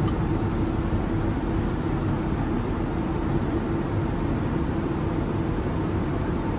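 Jet airliner cabin noise in flight: an even, steady rush with a low hum.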